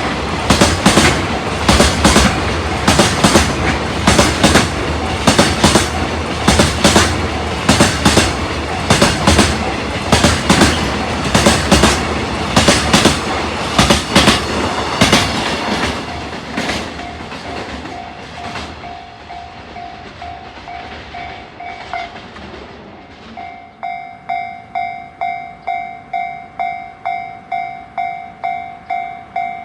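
Freight train passing, its wagon wheels clacking rhythmically over the rail joints. The clacking fades away about halfway through as the train clears the crossing. A Japanese level-crossing warning bell rings steadily, at about two strokes a second; it is faint at first and rings out clearly near the end.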